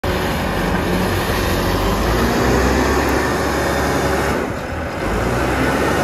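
Engine of a self-loading concrete mixer running steadily as the machine drives forward over sand with its loader bucket lowered.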